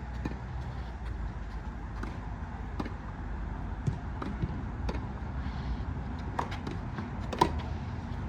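Steady low background rumble with a few short sharp knocks, the loudest about seven and a half seconds in.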